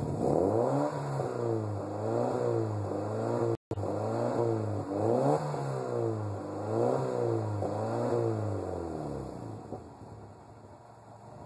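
Alfa 75 Twin Spark's 8-valve four-cylinder engine being revved repeatedly while stationary, heard from behind the car. The pitch climbs and falls back about every second and a half, then settles near the end. A split-second dropout comes a little over three seconds in.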